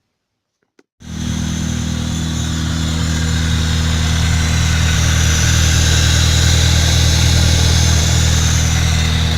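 Fiat Palio 1.0 Fiasa MPI four-cylinder engine idling steadily while it warms up, freshly fitted with a new timing belt and spark plugs. The sound comes in abruptly about a second in.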